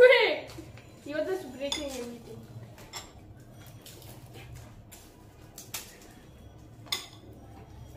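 Crockery clinking: a spoon and fingers knocking against ceramic plates and bowls as fuchka are filled and dipped in a hurry. There are a few sharp, separate clinks in the second half.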